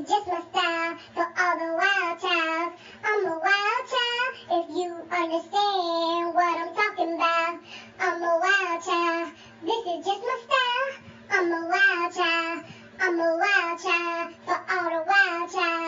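A child singing a song in short phrases, one after another, over a faint backing track.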